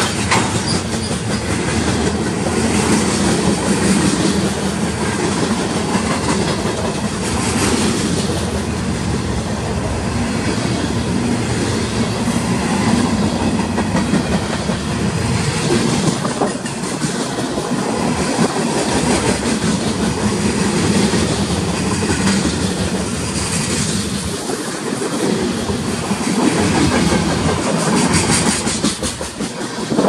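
Freight train cars, covered hoppers and boxcars, rolling past close by: a steady rumble with the clatter of wheels over rail joints. It drops away near the end as the last car goes by.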